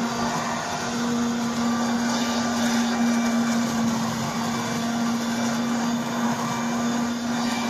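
Garden leaf blower (blower-vacuum in blowing mode) running steadily: an even motor tone under a constant rush of air.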